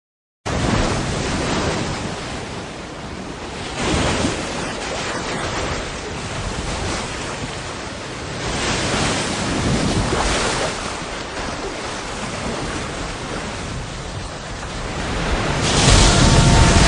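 Rough sea and wind: a steady rushing that swells and eases every few seconds, growing louder near the end.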